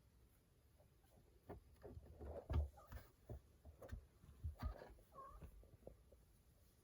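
A cat giving two short, quiet cries amid soft thumps and scuffling, the loudest thump about two and a half seconds in.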